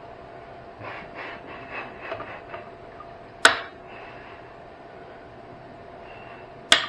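Wires and metal parts scraping and rattling as they are pulled about inside an old battery charger, then two sharp snaps about three seconds apart as heavy snips cut through wire.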